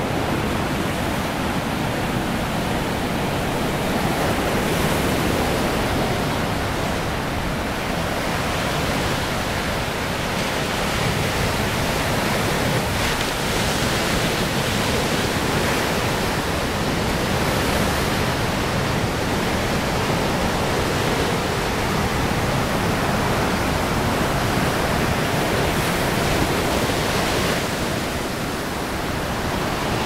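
Pacific Ocean surf breaking and washing up the shore: a continuous rushing wash of waves that swells and eases slightly in loudness.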